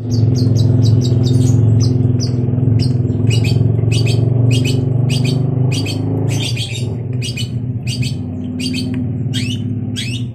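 Long-tailed shrike (cendet) calling in a fast series of short, harsh notes, about two a second, over a loud steady low hum.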